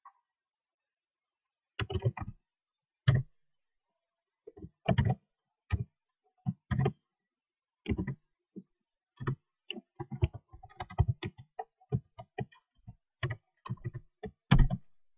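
Computer keyboard typing: irregular bursts of keystrokes separated by short pauses, coming thickest in the last few seconds.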